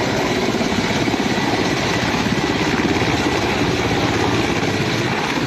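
Military helicopter running loud and steady, its rotor blades beating in a rapid, even chop.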